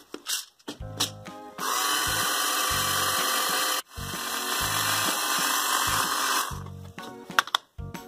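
Battery toy blender's small motor running with a steady whir, in two stretches with a brief break about four seconds in, over background music.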